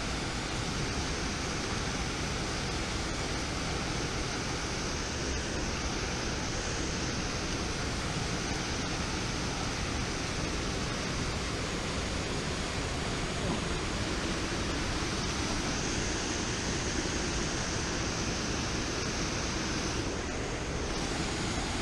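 Water pouring over a low dam spillway into the pool below: a steady, unbroken rush.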